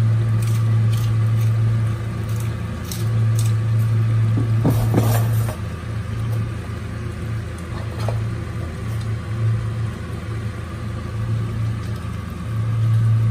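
A steady low hum that swells and dips, with a few light clicks and a short burst of clatter about five seconds in.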